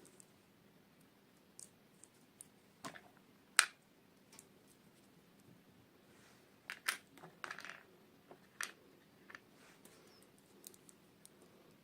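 Scattered sharp clicks and taps of small plastic toy pieces and packaging being handled, the loudest about three and a half seconds in and a quick cluster near the middle.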